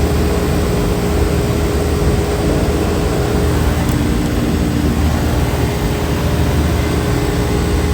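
Trane split-system outdoor condensing unit running: a steady hum with a constant tone under a loud, even rush of air.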